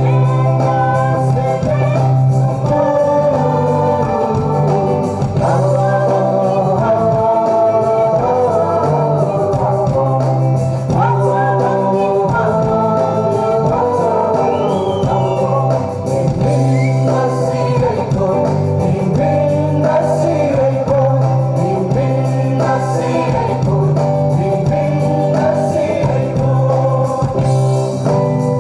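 Men and women singing a song together into microphones, amplified through a PA, over instrumental accompaniment with a steady bass.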